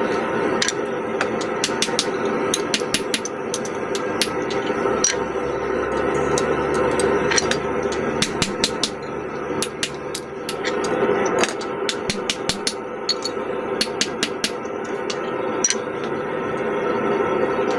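Hand hammer striking hot steel on an anvil while forging a claw hammer head. The blows are irregular and often come in quick runs of several a second, over a steady background hum.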